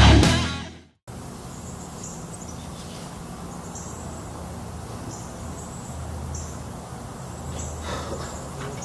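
Heavy guitar music fades out in the first second. After a brief silence comes steady background ambience with a low hum and short, faint, high chirps recurring every second or so.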